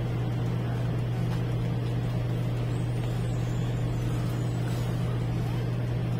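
A steady low hum that holds the same pitch throughout, over faint room noise.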